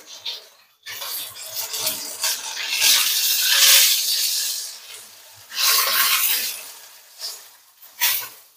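Frying at the wok: hot oil sizzling and a metal spatula scraping the pan, coming in swells that are loudest about three to four seconds in and again around six seconds, with short bursts near the end.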